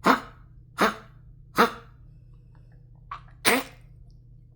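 A dog coughing in a fit: three sharp coughs about three quarters of a second apart, a pause, then a small catch followed by one more cough near the end.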